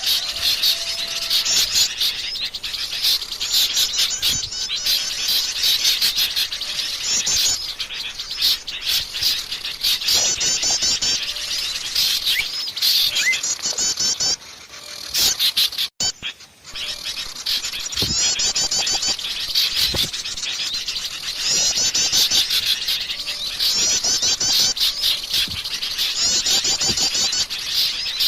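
Wild forest birds singing: repeated phrases of rapid, high chattering notes come every second or two. The sound breaks off abruptly for a moment about halfway through, then resumes.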